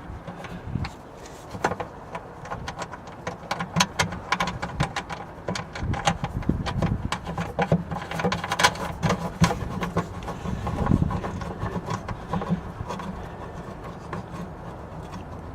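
Irregular small clicks, taps and rubbing as a nut is threaded by hand onto a battery-cable terminal stud and the flexible cable is handled into place.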